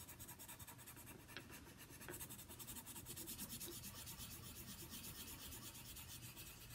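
Faint scratching of a colored pencil on paper, in quick back-and-forth shading strokes.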